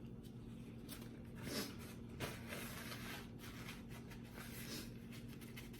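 Close-up eating sounds: a person chewing and smacking on food, with a string of short, soft, wet bursts.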